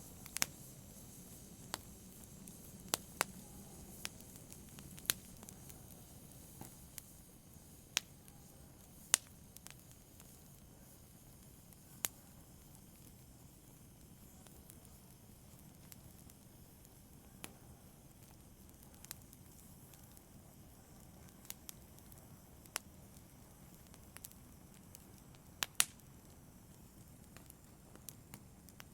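Fireplace fire crackling: scattered sharp pops at irregular intervals over a faint steady hiss of the burning fire.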